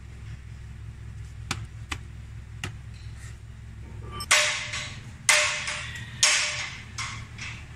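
Mercedes-Benz Actros truck diesel engine idling with a steady low hum and a few sharp clicks. From about four seconds in come four loud bursts of air hissing, about a second apart, each fading away.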